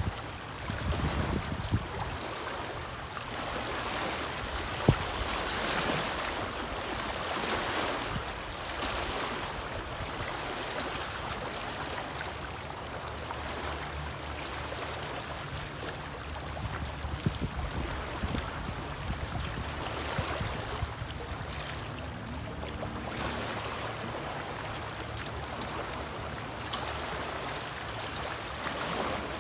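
Small waves lapping and splashing against a rocky lakeshore in a steady wash that swells and eases every few seconds, with a low rumble of wind on the microphone.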